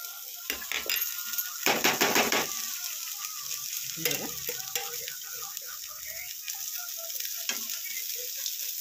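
Finely chopped cauliflower sizzling in a little oil in a steel kadhai as it is dry-roasted until crisp, stirred with a steel slotted spoon. A louder burst of stirring comes about two seconds in.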